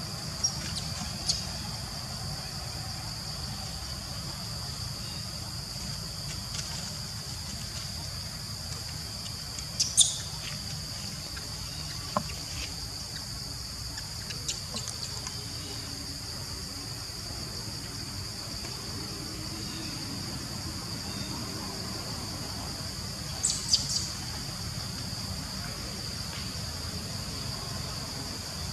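Steady high-pitched drone of insects, with a low rumble beneath. A few short, sharp high chirps cut through it, the loudest about ten seconds in and another pair near the end.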